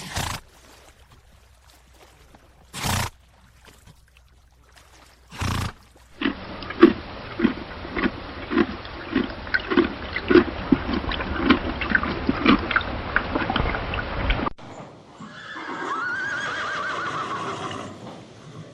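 A horse sound-effects sequence. Three short, separate blasts come first. Then about eight seconds of evenly spaced rhythmic strokes follow, a little under two a second. A horse whinnies near the end, its pitch rising and falling.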